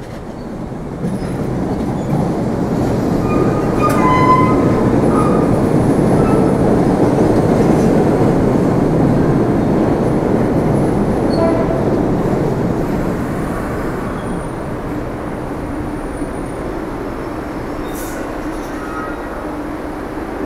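A train passing on the rails: the rumble builds over the first few seconds, is loudest through the middle, then eases off after about 13 seconds. A few short high tones sound about four seconds in.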